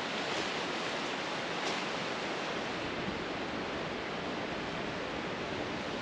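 Steady, even rushing hiss of water, with no single drops or splashes standing out.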